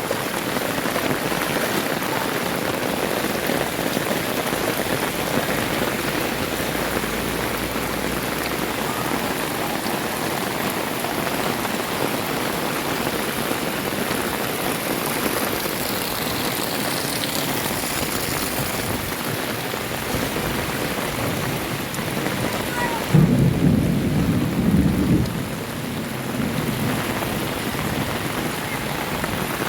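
Heavy rain pouring steadily, hissing evenly on the surfaces around. About three-quarters of the way through comes a brief, louder low rumble.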